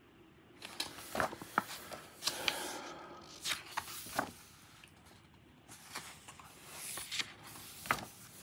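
Pages of a large hardcover art book being turned in quick succession by hand: paper rustling with crisp flicks and snaps, a short lull about halfway through, then more rustling as the book is opened flat.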